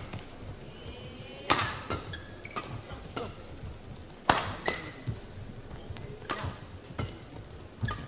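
Badminton rally: rackets striking the shuttlecock in sharp cracks about once a second, some in quick pairs, with short high squeaks from players' shoes on the court.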